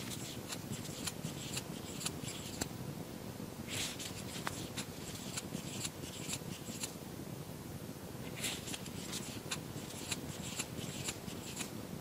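A crochet hook working yarn: runs of faint scratchy clicks and rustling as stitches are pulled through, each run a few seconds long with short pauses between.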